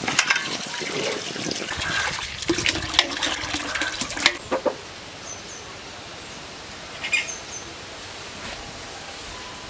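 Water splashing and pouring, with a few sharp clicks, for about the first four seconds. It then gives way to a quieter background with a few short high chirps.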